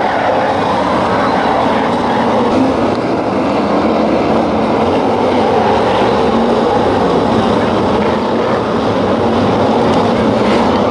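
A pack of V8-powered BriSCA F1 stock cars racing, their engines merging into a steady, dense din.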